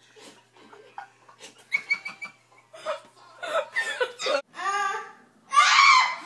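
A child giggling and laughing in short bursts, with a louder laugh near the end.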